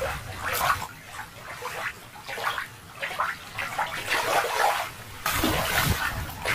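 Shallow water sloshing and splashing in uneven surges, with a louder rush of splashing about five seconds in.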